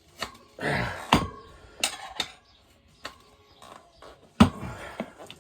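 Steel tyre levers clinking and knocking against a motorcycle wheel rim as a tight tyre bead is levered over by hand, about seven sharp metallic clicks spread out, the loudest about four and a half seconds in.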